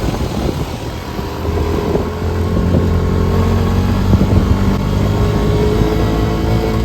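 ATV (four-wheeler) engine running steadily while riding, its note growing louder and clearer about two seconds in.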